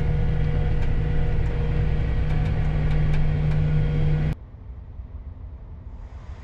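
Steady drone of a harvest machine heard from inside the cab, a strong low hum with faint ticks over it. About four seconds in it cuts off abruptly to a much quieter, steady low rumble.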